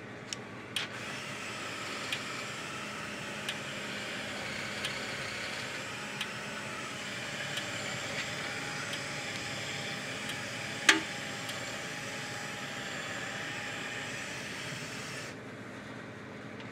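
Parmak Solar Pak 6 electric fence charger running on about 6.5 volts from a bench power supply, clicking faintly about every second and a half as it fires its pulses: the sign that the repaired unit is working. A steady hiss runs underneath and drops away near the end, and a single sharper knock comes about eleven seconds in.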